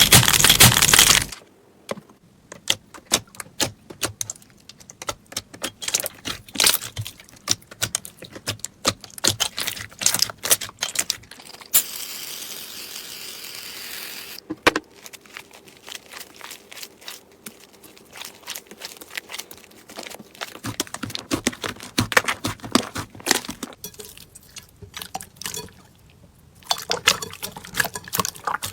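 Slime being squeezed and poked by hand, making many quick clicky pops and crackles. A loud noisy burst in the first second, and a steady hiss for about three seconds near the middle.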